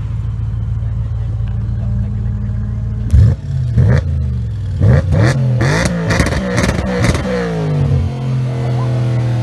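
Audi RS5 coupe's V8 engine rumbling at low speed, then revved several times in quick succession, pitch rising and falling, with sharp cracks from the exhaust between the revs. Near the end the pitch rises steadily as the car pulls away.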